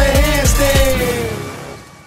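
The end of a hip hop track fading out. Deep bass-drum hits that drop in pitch stop about a second in, and a held note fades away under them as the song ends.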